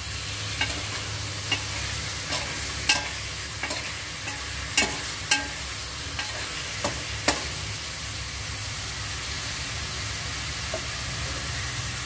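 Chicken pieces sizzling in their own rendered fat in a metal pot, with a metal spoon clinking and scraping against the pot as they are stirred. The clinks stop about seven seconds in and the steady sizzle goes on alone; the chicken is starting to brown.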